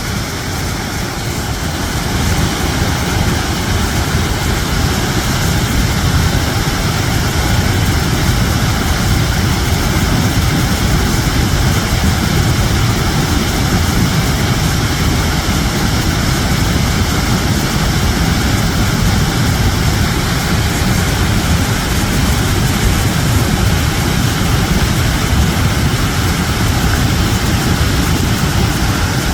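Waterfall: water falling and rushing steadily, heaviest at the low end, growing a little louder over the first couple of seconds.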